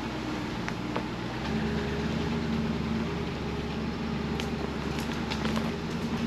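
A vehicle engine running while driving off, its note stepping up and getting louder about a second and a half in, with a few light clicks and knocks scattered through.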